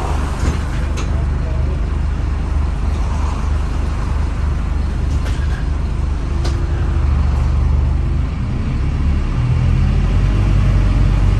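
Scania N270UD double-decker bus's five-cylinder diesel engine running under way, heard from the upper deck as a steady low drone with road noise and a few sharp rattles from the body. The engine note shifts and grows louder about eight to nine seconds in as the bus pulls harder.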